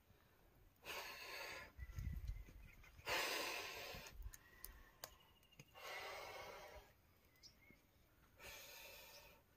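A man breathing heavily, with four long noisy breaths about two to three seconds apart.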